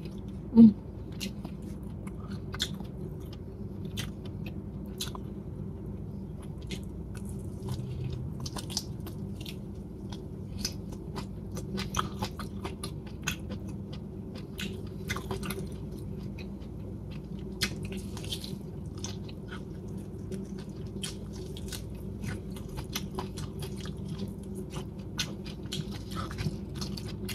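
Close-miked eating sounds of salt-cured chicken being chewed: many small wet clicks and smacks of mouth and lips through the whole stretch, over a faint steady hum. One sharper, louder click comes about half a second in.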